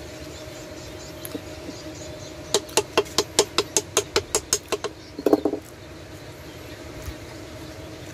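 A claw hammer tapping rapidly on the metal housing of an Alkon NS 150 water pump: about fifteen light strikes at roughly six a second, followed by a short clatter.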